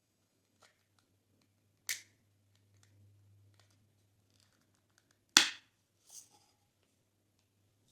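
Glossy slime popping as it is worked by hand: two sharp pops about three and a half seconds apart, the second one louder, with a few fainter clicks around them.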